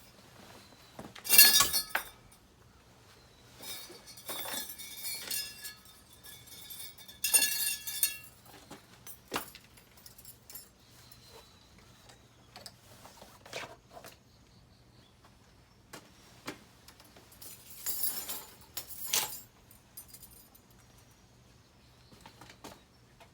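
Metal parts clinking and rattling as they are handled, in several short bursts of bright clatter; the loudest is about a second and a half in, and a last pair comes near the end.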